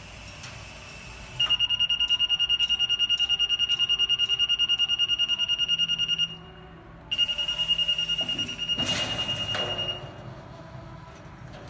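SkyJack SJ4632 electric scissor lift's descent alarm sounding as the platform lowers: a high-pitched, rapid beeping that stops briefly about six seconds in, then resumes until about ten seconds in. A short burst of hissing noise comes about nine seconds in, as the platform nears the bottom.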